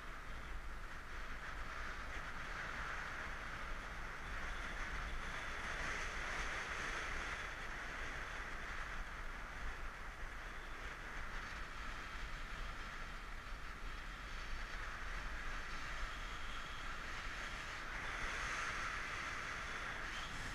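Steady rush of wind over the microphone of a camera on a bicycle speeding downhill, with low tyre and road rumble beneath. It swells and eases a few times.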